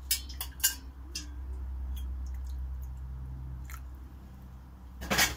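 Boiled water poured in a steady stream into a glass of tomato paste, after a few light clicks of handling; a loud knock near the end.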